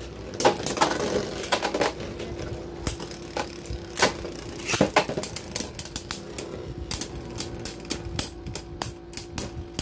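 Beyblade spinning tops clattering in a clear plastic stadium, knocking against each other and the stadium wall in quick, irregular clacks. A steady hum sets in about two seconds in and holds.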